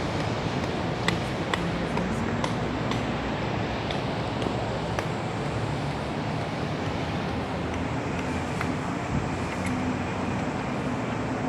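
Steady road traffic noise, with a run of light sharp clicks about one to three seconds in and a few more later on.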